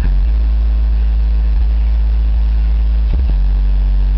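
Two 12-inch Alpine Type R car subwoofers, driven by a Powerbass 1000.1 amplifier, playing loud sustained bass notes that drop to a lower note a little over three seconds in.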